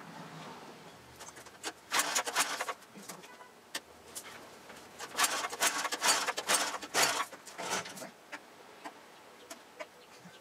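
A 6500-watt portable generator's engine being cranked over twice, a short attempt about two seconds in and a longer one about five seconds in, without catching: the generator has sat unused a long time and won't start.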